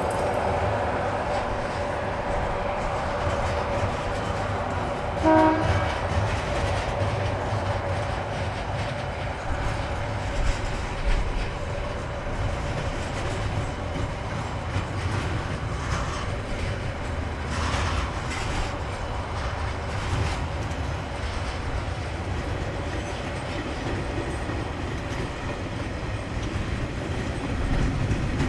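A KiwiRail EF-class electric locomotive and its train rolling along the track, with wheels clicking over the rails and a steady rumble. A short horn toot sounds about five seconds in.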